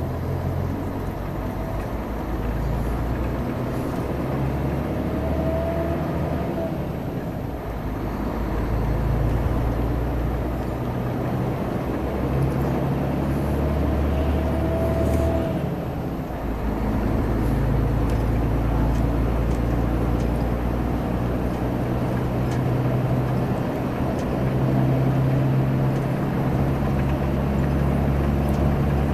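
Intercity bus diesel engine running at road speed with a deep, loud growl (roncando), its low note shifting up and down in steps several times.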